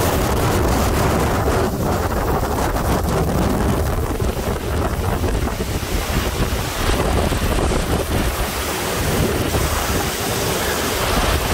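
Hurricane-force wind buffeting the microphone: a loud, steady rush of wind noise.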